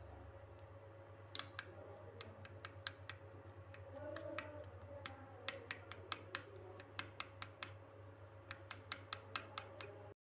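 A steel spoon beating eggs in a bowl, clicking against the bowl's side in quick, irregular taps from about a second in.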